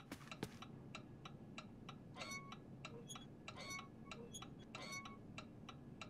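Clock ticking steadily and faintly, about three ticks a second, with a brighter, slightly ringing tick every second and a half or so.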